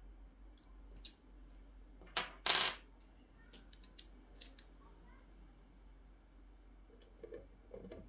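Small metal clicks and taps of a screwdriver and screws being handled, with a short louder clatter about two seconds in, followed by a quick run of light clicks.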